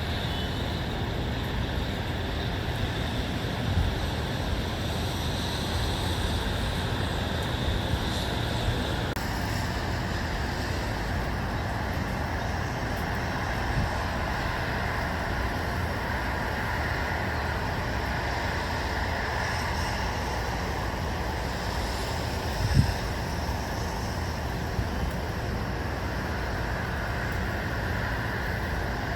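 Steady outdoor ambience of distant road traffic, an even rumbling hiss, with one brief low thump about three-quarters of the way through.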